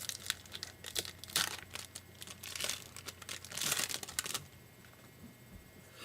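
Crinkling of a foil trading-card pack wrapper being handled and torn at, in an irregular run of crackles that dies down about four and a half seconds in.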